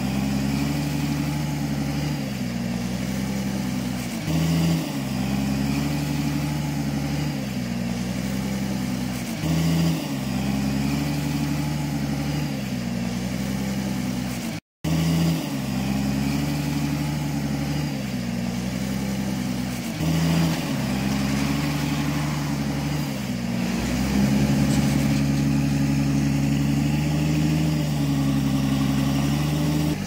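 Dump truck diesel engine running steadily, its sound repeating in a pattern about every five seconds, with a brief cutout about halfway and louder for the last few seconds.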